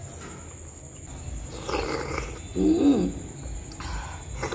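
Close-up eating sounds of a woman eating balut in tamarind sauce and boiled duck egg: mouth and chewing noises, with a short hum that rises and falls in pitch about two-thirds of the way through, the loudest sound. A faint steady high whine runs underneath.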